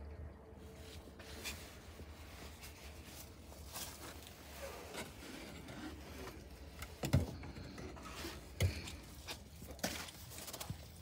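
Faint scraping and rubbing with two short knocks in the second half, from a hand working at smoked duck hung on rods in a wooden smokehouse.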